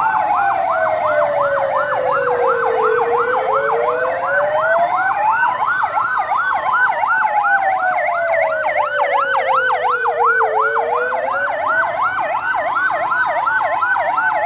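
Electronic emergency siren sounding two tones at once: a fast yelp cycling a little over twice a second, and over it a slow wail that rises and falls about every seven seconds, signalling the earthquake drill.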